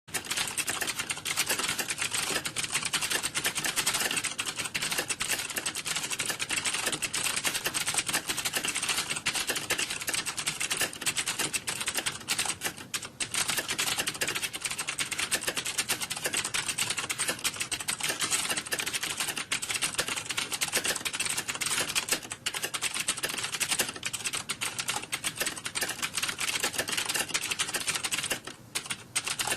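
Fast, continuous typing on a computer keyboard, a dense stream of key clicks with brief pauses about halfway through and near the end.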